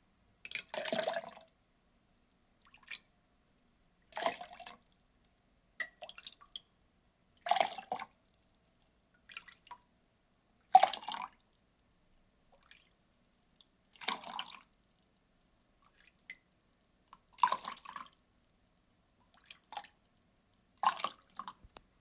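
Water poured in short splashes, each lasting about half a second to a second and coming about every three and a half seconds, with fainter drips between them.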